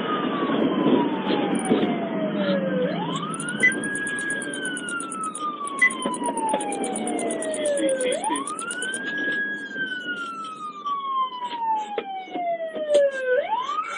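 Police cruiser siren on a slow wail, each cycle a quick rise and a long slow fall, repeating about every five seconds, over the cruiser's engine and road noise during a high-speed pursuit. A few short sharp knocks sound through it.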